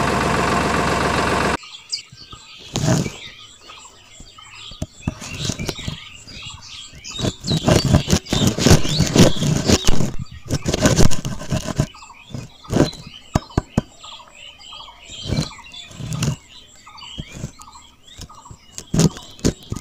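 Hands handling and fitting small plastic pump parts and rubber tubing, with scattered clicks, taps and rustling, while small birds chirp in the background. A steady buzzing hum fills the first second and a half and cuts off abruptly.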